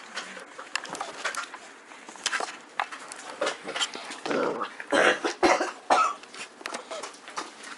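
Magyar Vizsla dogs play-fighting with puppies on a rug: scuffling and short dog vocal sounds, busiest and loudest about four to six seconds in.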